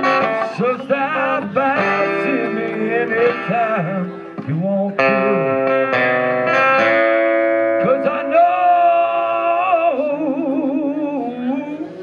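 A man singing and playing guitar live, a song of long held notes, with a wavering held note from about eight to ten seconds in.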